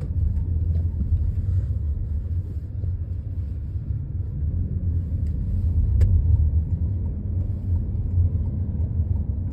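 Steady low rumble of a vehicle in motion, with one sharp click about six seconds in.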